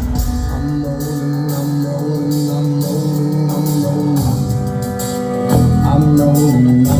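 Live rock band playing an instrumental passage: drums with cymbals ticking over held pitched instrument lines. The bass drops away for a few seconds, then comes back in about five and a half seconds in, and the music gets louder.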